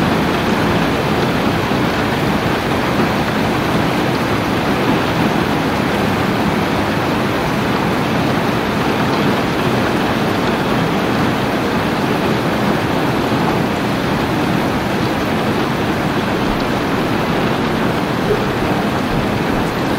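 Steady rain falling, an even hiss that holds at the same level throughout, with no distinct drops or thunder standing out.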